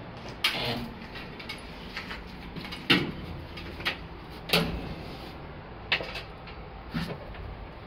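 Elevator in a subway station: about half a dozen irregular sharp clunks and knocks, a second or so apart, over a steady low hum.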